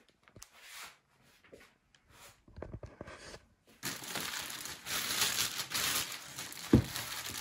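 Packaging being handled and crinkled: a few soft rustles, then from about four seconds in a dense, continuous crinkling, with a single thump near the end.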